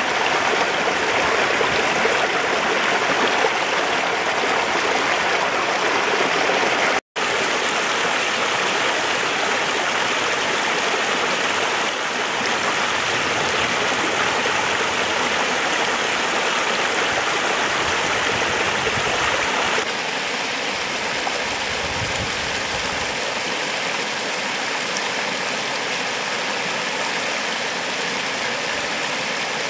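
Shallow mountain stream running over rocks and small cascades, a steady rush of water. It drops out for an instant about seven seconds in, and later steps down twice to a slightly softer rush.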